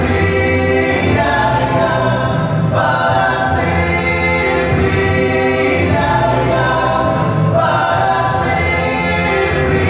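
Male vocal quartet singing a gospel song in close harmony through microphones, holding chords that shift every second or so.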